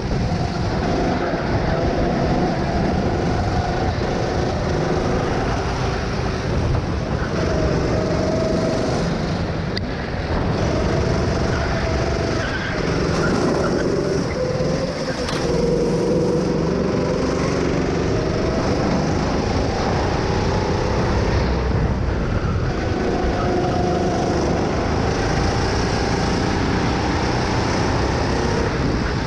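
Onboard sound of a go-kart engine running hard, its pitch rising and falling as the driver goes on and off the throttle through the corners.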